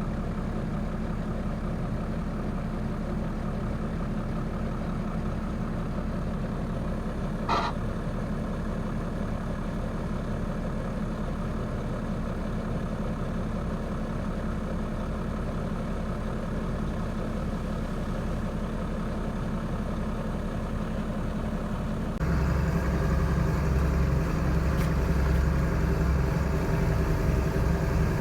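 Diesel engine of heavy harvest machinery running steadily, with a brief high squeak about a third of the way in. Near the end the sound abruptly gets louder, with a heavier low rumble.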